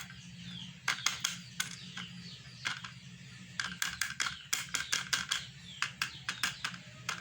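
An aluminium-foil sachet of powder crinkling and crackling as it is torn open and emptied. A few crackles come in the first seconds, then they come thick and fast over the last few seconds.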